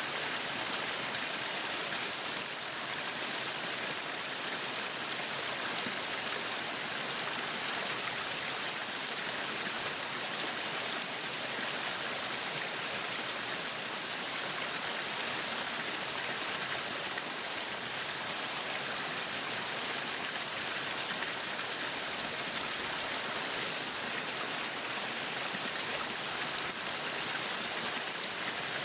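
Meat sizzling on a yakiniku grill: a steady, dense hiss of fat and juices frying.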